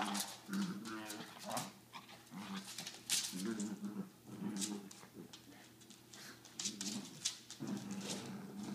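Two small dogs play-fighting, growling in irregular bursts, with sharp clicks and scuffles between the growls.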